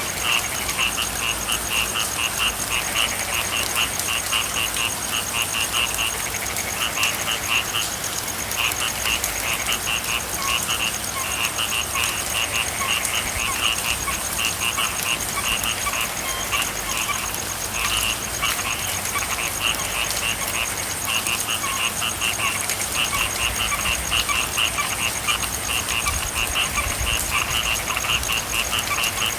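A chorus of frogs calling, repeated trains of rapid pulsed croaks with short pauses between them, over a steady hiss of rain.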